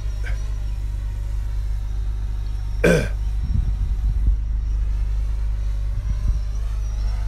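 A steady low rumble, with one short throat sound dropping in pitch about three seconds in, followed by a few faint low thumps.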